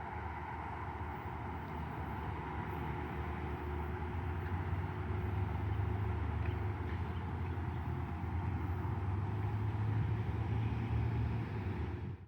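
Passenger train running, a steady low hum with a faint held whine above it, slowly growing louder.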